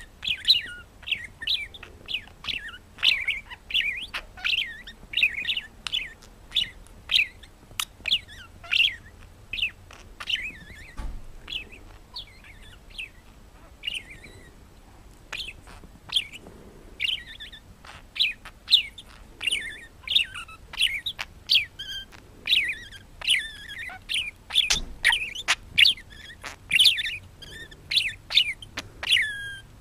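Parrot chirping: a steady stream of short, sharp chirps, several a second, many of them sliding in pitch, with brief pauses now and then.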